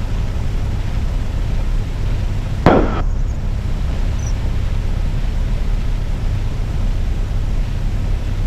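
Cessna 172's piston engine idling with a steady low drone. A short, sharp burst of noise cuts in about two and a half seconds in and fades within half a second.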